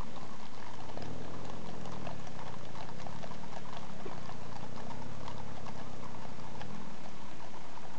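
Hooves of many horses clip-clopping on a tarmac road as a group walks along, with a car driving past close by.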